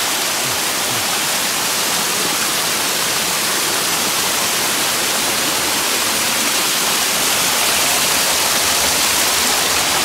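Small waterfall splashing down over rock ledges: a steady rush of falling water.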